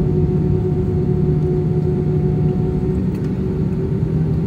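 Jet airliner's engines running at low taxi power, heard inside the passenger cabin: a steady hum with a couple of held tones and no change.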